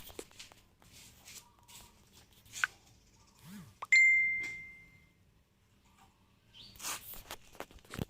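A single bright ding about four seconds in, one clear ringing tone that fades away over about a second. A few soft clicks and rustles come before and after it.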